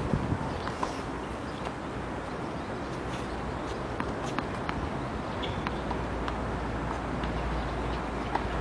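Tennis court ambience between points: a steady background hiss with scattered faint taps and clicks.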